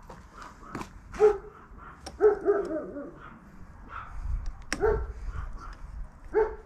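A dog barking in short yips, about five or six times, with a quick run of barks a little over two seconds in.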